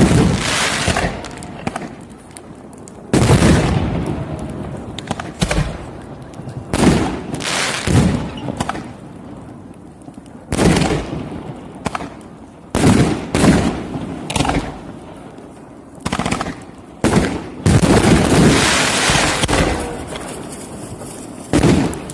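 Professional fireworks display: a barrage of launches and aerial shell bursts from large-calibre display shells, sharp loud bangs in quick succession, each trailing off in an echo. About three quarters of the way in comes a longer dense stretch of overlapping bangs.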